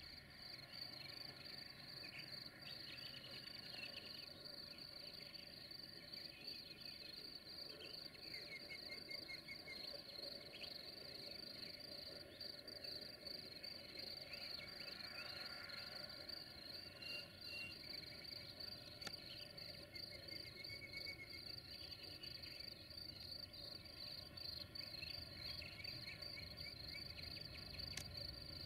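Insects chirring in a continuous, faint, high-pitched trill, with a few short higher calls mixed in.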